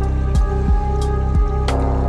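Background electronic music: sustained synth tones over a steady low bass, with three short falling bass notes and light high ticks on the beat.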